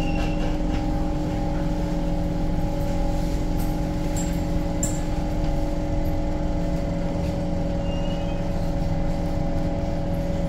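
A Siemens C651 metro train standing stopped at a platform, its onboard equipment humming steadily with several steady tones over a low rumble. A couple of faint clicks come about halfway through.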